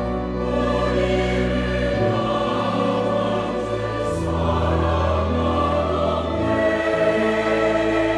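Large mixed church choir singing a hymn anthem in Korean, with organ, piano and strings accompanying; held low bass notes shift to a new pitch every couple of seconds.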